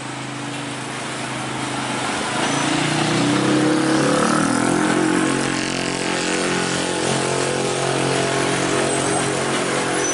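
Diesel engine of a large box truck pulling slowly across a railway level crossing, its note rising and growing louder a few seconds in, then holding steady.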